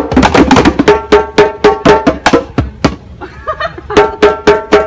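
Several djembes played together in a quick, steady rhythm, sharp hand strokes with a ringing tone. The beat drops out briefly about three seconds in, then comes back.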